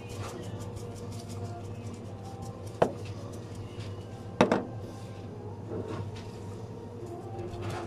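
Sharp knocks of a plastic sesame-seed shaker tub handled on a prep counter: one knock about three seconds in and a louder double knock about a second and a half later, over a steady low hum.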